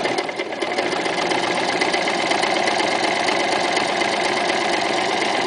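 Toyota FSG325 sewing machine with a walking foot fitted, stitching through fabric. It runs steadily with a fast, even rhythm of needle strokes.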